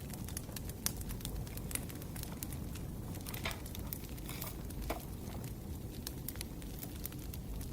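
Firewood burning: a steady low rumble of flames with frequent sharp crackles and pops, and a couple of brief hisses around the middle.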